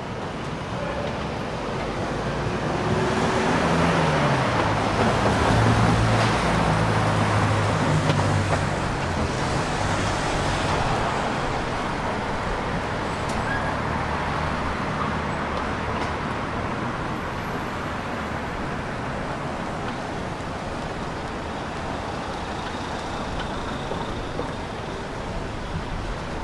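City street traffic noise, with a motor vehicle's engine passing close: it dips in pitch as it goes by and is loudest from about four to ten seconds in, then fades into the steady traffic.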